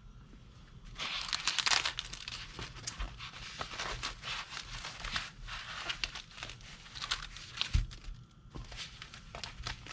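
Packaging wrap crinkling and rustling as it is handled, with small clicks and knocks throughout, starting about a second in.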